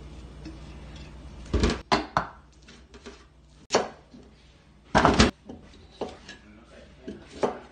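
Kitchen prep knocks and clacks: the stainless chopper bowl being handled, then a knife cutting a carrot on a plastic cutting board, as a string of sharp single knocks, the loudest about five seconds in. A low steady hum sits under the first second and a half.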